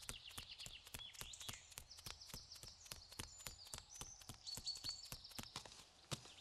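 Faint quick light taps, about six a second, like running footsteps, with high bird chirps and whistles over them.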